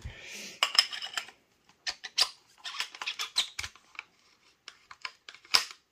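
Irregular small clicks, taps and scratches of parts and tools being handled on a Milsig FSC paintball carbine, with a brief hiss at the start.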